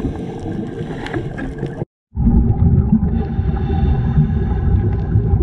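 Muffled underwater sound heard through a dive camera's housing: a steady low rumble of water with faint scattered crackles. It cuts out completely for a moment about two seconds in, then the rumble resumes.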